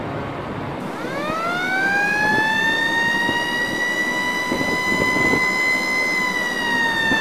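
A siren winding up. A single wailing tone starts about a second in and rises in pitch for about two seconds, holds steady, then begins to wind down near the end.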